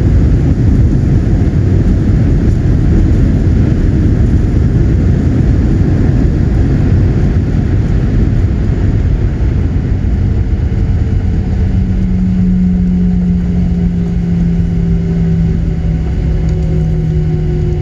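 Cabin noise of a Boeing 737-900ER on its landing rollout: a loud, heavy rumble from the engines and runway. From about ten seconds in, engine tones slowly fall in pitch as the engines spool down.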